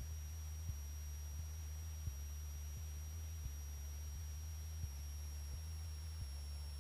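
Low, steady drone of a single-engine Cessna's piston engine and propeller in cruise flight. A faint click comes about every 0.7 seconds, and a thin steady high whine sits above the drone.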